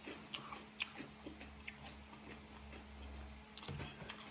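Faint chewing of spaghetti: soft, irregularly spaced wet mouth clicks over a low steady hum.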